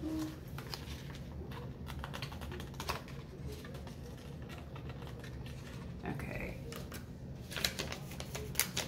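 Crinkling and light irregular clicking of a paper packet being shaken and tapped as hair-lightening powder is poured from it into a small plastic cup, with a run of sharper clicks and taps near the end.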